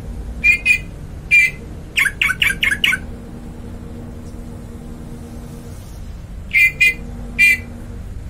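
A bird giving short squawking calls in clusters: two, then one, then a quick run of five, and three more near the end, over a faint steady low hum.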